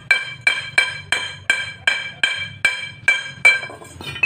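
A small hammer rapping on a welded steel pipe at the joint, about three strikes a second, each strike ringing like the pipe, as when chipping slag off a fresh weld. Near the end comes a quick cluster of lighter taps.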